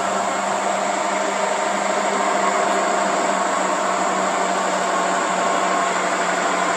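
Heavy truck's diesel engine pulling a heavy trailer load uphill, a steady drone with a held low hum.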